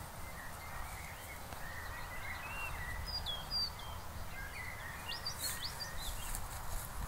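Small birds singing: a thin warbling line, then short sharp high chirps in two clusters, a few seconds in and again near the end, over a steady low rumble and hiss of outdoor air.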